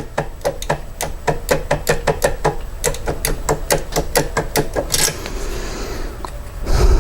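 Rapid light metallic clicking, about four to five clicks a second, as a Schlage depth key is worked back and forth in the clamped lock cylinder to impression the pins. One louder scrape about five seconds in.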